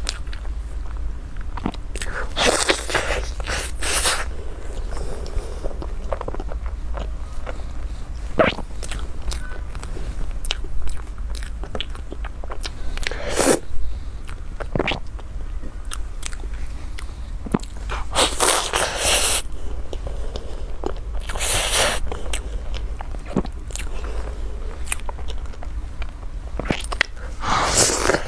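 Close-up eating sounds: bites and chewing with frequent sharp clicks and several louder bursts of a second or so, over a steady low hum.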